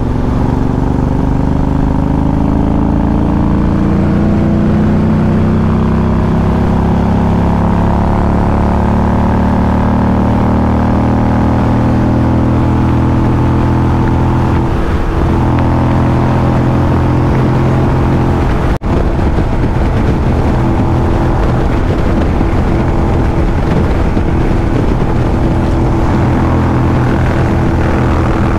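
Motorcycle engine running steadily while riding, with wind noise. Its pitch slowly sinks over the first several seconds, then holds level. The sound cuts out for an instant about two-thirds of the way through.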